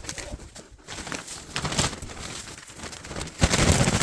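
Wood shavings rustling and crackling as they are spread by hand, with a louder rush of rustling starting about three and a half seconds in.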